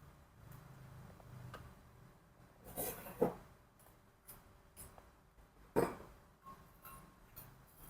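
A few irregular clinks and knocks of kitchen utensils against dishes and a mortar while ingredients are added: two close together about three seconds in, a louder one near six seconds, and lighter ticks between.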